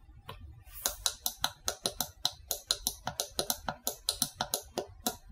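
Rapid, irregular clicking, about five clicks a second, as the output buttons of a small prop controller are tapped to record an animation live, the small solenoid actuators on its outputs clacking in and out with each press.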